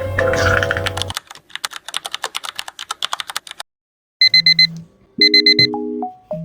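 Typing on a computer keyboard: a quick run of uneven key clicks for about two and a half seconds. After a short pause, a digital alarm clock beeps in two short bursts of rapid high beeps.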